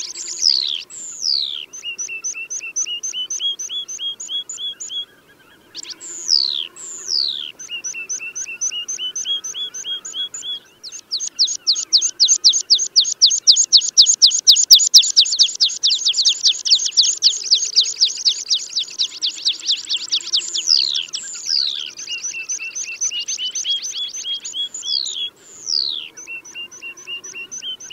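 Tree pipit song played as a hunting lure: repeated song phrases of trills and high whistled notes sliding downward. Through the middle comes a long run of fast, loud, evenly repeated notes.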